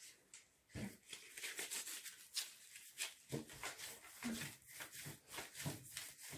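Plastic-gloved hands rolling a rope of yeast dough back and forth on an oiled tabletop: a run of soft, uneven rubbing strokes.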